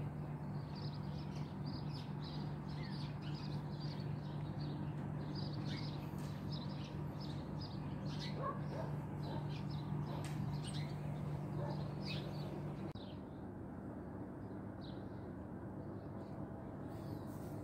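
Small birds chirping in many quick short notes over a steady low hum. About two-thirds of the way through, the hum stops and the chirping thins out to a few calls.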